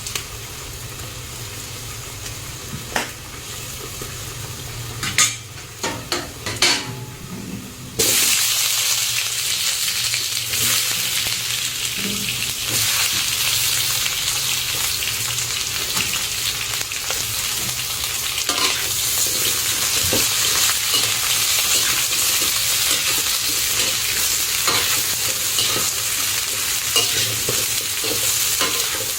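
Rat meat frying in hot oil with lemongrass and chili, stirred in the pan: a few clicks of the utensil over a quieter sizzle, then about eight seconds in the sizzle jumps suddenly louder and keeps going steadily.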